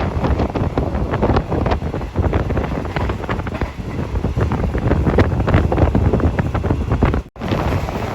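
Strong wind buffeting a phone microphone, a loud rough rumble, with a brief cut-out near the end.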